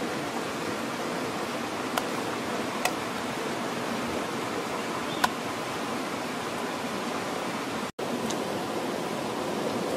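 Steady rushing outdoor background hiss, like running water, with a few short sharp clicks at about 2, 3 and 5 seconds in. The sound drops out for an instant just before 8 seconds, at a cut.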